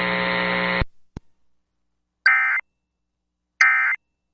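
EAS End-of-Message data bursts from a NOAA Weather Radio alert. After a steady buzzing hum cuts off just under a second in and a click follows, two short identical raspy digital bursts sound about 1.35 seconds apart. They are the repeated 'NNNN' code that signals the end of the warning broadcast.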